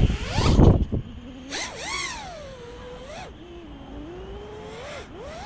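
FPV quadcopter's brushless motors whining, the pitch rising and falling smoothly as the throttle changes, after a loud rush of wind noise in the first second.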